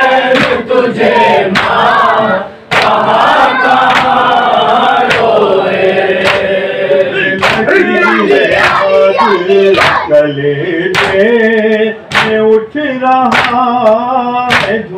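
A group of male mourners chanting a noha lament in chorus, with sharp even strikes a little under two a second keeping time: the chest-beating (matam) that goes with a noha.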